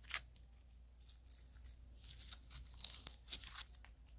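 Purple glitter slime being handled and stretched by hand, giving faint sticky crackling and tearing sounds, with a sharp click just after the start.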